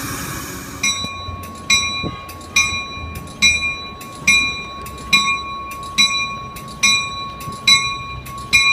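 Caltrain locomotive bell ringing steadily, a little faster than once a second, each stroke ringing on into the next. The ringing starts about a second in after a short hiss, over the low rumble of the train at the platform.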